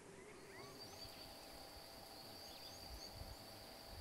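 Faint wild ambience: a steady high-pitched insect drone, with scattered short bird chirps over it.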